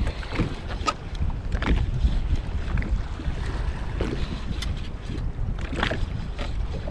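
Wind buffeting the microphone as a steady low rumble, with scattered light knocks and clicks.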